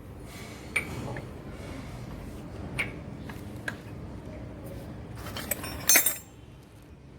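Scattered metallic clinks and taps of hand tools and small engine parts being handled. A few single clicks are followed by a louder quick cluster near the end.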